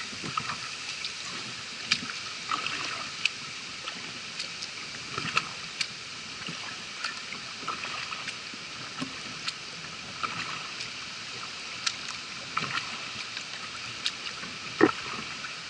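Kayak paddle strokes through floodwater: soft splashes and drips from the blades over a steady watery hiss, with scattered small ticks and one sharper knock near the end.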